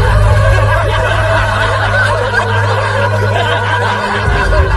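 Several people laughing and snickering together, over a steady low drone that stops shortly before the end.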